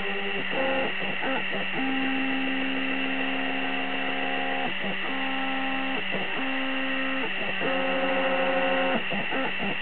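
Stepper motors of a homemade laser engraver whining as they drive the head and bed, holding one steady note and then jumping to another about every one to three seconds, with a brief rattle at each change of move. A steady hiss runs underneath.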